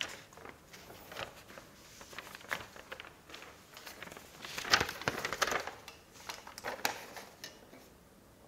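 Rustling and clicking as a ruler and sheets of paper are picked up and handled, with a cluster of louder rustles about five seconds in.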